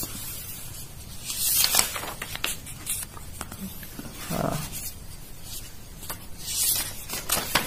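Pages of a paper sketchbook being turned by hand: rustling and flapping paper in several bursts, loudest about one and a half seconds in and again near the end.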